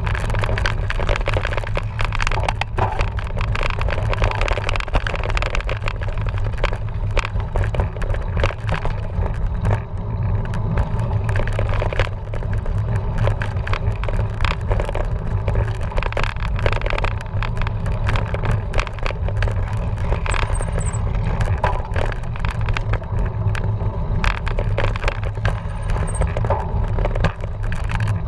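Cyclocross bike ridden hard over rough trail: a steady rush of wind on the microphone, with constant rattling, clicking and crunching of the bike and its tyres over the ground.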